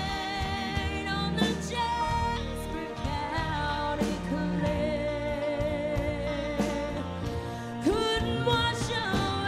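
Live country song played by a band, with a woman singing held, wavering notes.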